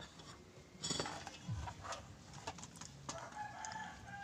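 A rooster crowing in the background, a drawn-out pitched call in the latter part, over scattered light clicks and taps from handling small tools.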